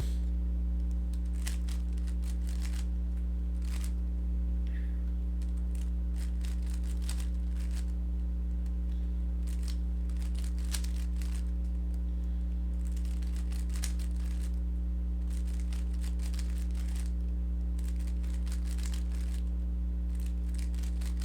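Rubik's cube turned in quick runs of moves while OLL algorithms are worked through: the plastic layers click and clack in clusters with short pauses between. A steady low electrical hum runs underneath and is the loudest sound.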